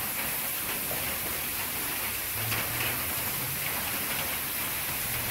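Bacon strips and potatoes sizzling on a hot Blackstone flat-top griddle: a steady frying hiss.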